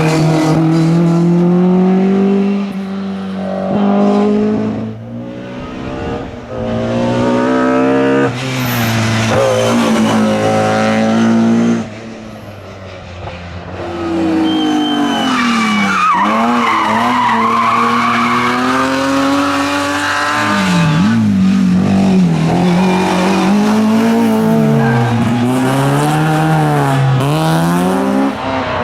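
A succession of rally cars at full throttle, engines revving hard through quick gear changes, the pitch climbing and dropping back with each shift. They pass close by one after another with a drop in pitch as each goes past, and tyres squeal through the corners, loudest around the middle.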